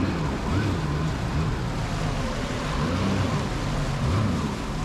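Jet ski engine running on the water, its pitch rising and falling, under a steady rush of wind and water noise.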